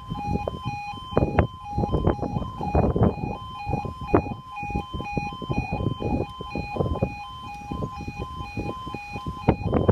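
British level-crossing warning alarm sounding its two-tone yodel, switching quickly back and forth between two pitches while the barriers come down. Irregular low buffeting noise, louder than the alarm at moments, runs underneath.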